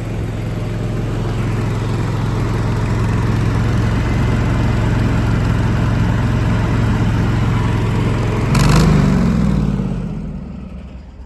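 Truck-mounted Ingersoll Rand hydraulic air compressor running steadily. About eight and a half seconds in there is a short loud burst of noise, then its pitch falls and it winds down as it is shut off.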